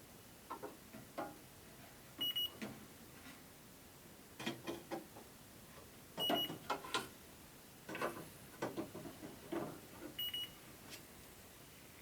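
An electronic refrigerant leak detector gives a short high beep every four seconds, three times, while it sniffs the dehumidifier's coils for refrigerant. Irregular clicks and knocks of handling fall between the beeps.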